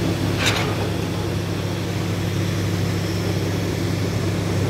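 Concrete pump's diesel engine running steadily as concrete is pumped through the delivery hose, with a single sharp knock about half a second in.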